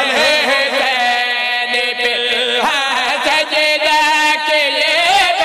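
A man singing a devotional qasida as a slow chant, with long held notes that bend and waver in pitch, his voice amplified through a microphone.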